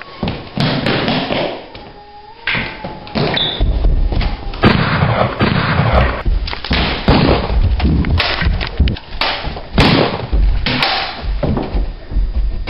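A rapid run of loud thumps and knocks, with a brief steady tone about two seconds in.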